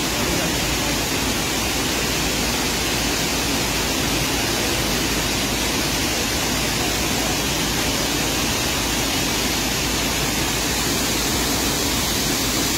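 Mountain stream rushing down a steep rocky cascade: a loud, steady rush of white water.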